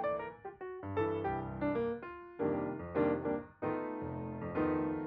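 Background piano music, a string of notes struck one after another and left to ring.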